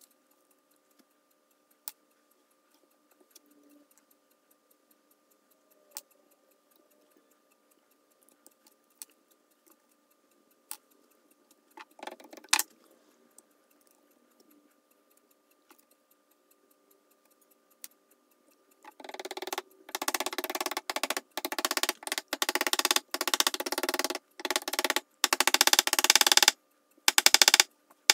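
Oak shims being driven into the eye of a steel ball peen hammer head. First a few scattered light clicks and knocks, then from about two-thirds of the way in, rapid, loud repeated tapping.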